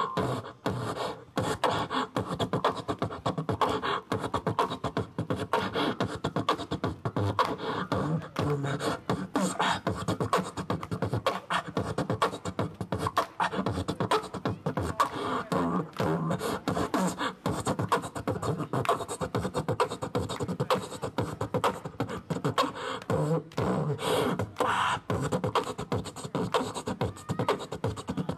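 Human beatboxing into a hand-held microphone: a continuous run of mouth-made drum hits and clicks with some vocal bass tones.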